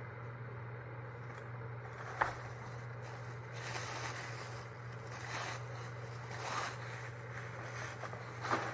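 Tissue paper and a gift bag rustling and crinkling in several bursts as items are pulled out, with a sharp tap about two seconds in, over a steady low hum.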